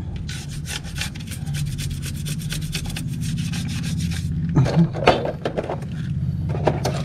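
A brush scrubbing the scooter's bare metal CVT crankcase in quick, rapid strokes for about four seconds, then a few scattered scrapes.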